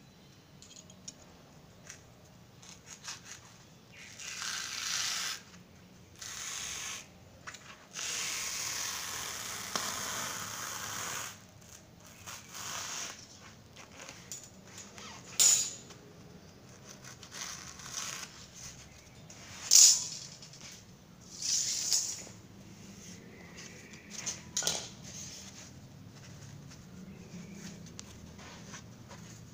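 Utility knife blade slicing through a sheet of foam along a steel ruler: a series of rasping cutting strokes, the longest lasting about three seconds. Several sharp clicks or knocks follow in the second half, with softer rustling of the foam being handled near the end.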